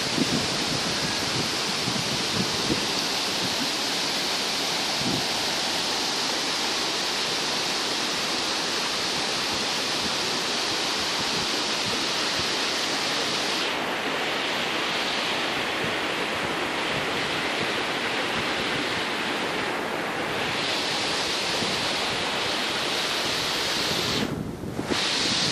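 River rapids: shallow water rushing steadily over and between boulders. The sound dips briefly near the end.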